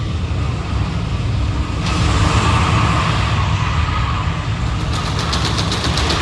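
Rocket launch simulation playing over a theatre sound system: a loud, steady low rumble of a Saturn V lift-off. About two seconds in, a hiss joins it. Near the end a fast rattle comes in, the simulated shaking of the room.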